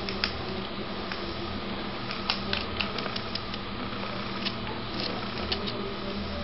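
Steady background hiss with a low hum and scattered faint clicks.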